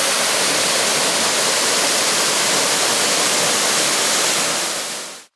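Steady rushing roar of a waterfall, the roughly 23-metre lowest tier of Hossawa Falls, fading away near the end.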